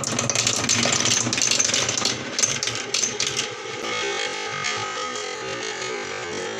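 Marbles rolling and clattering down a wooden marble run: a dense rattle of many quick hits for the first few seconds, settling into a steadier rolling sound.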